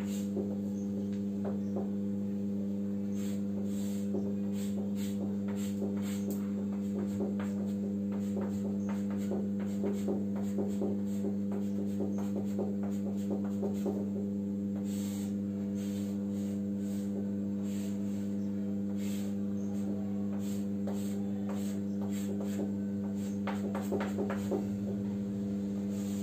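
A steady low hum, the loudest sound, with chalk tapping and scratching against a blackboard in many short strokes, thicker around the middle and near the end.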